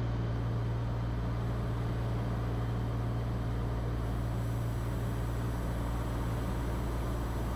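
Cirrus SR20's single piston engine and propeller droning steadily, heard from inside the cockpit in flight.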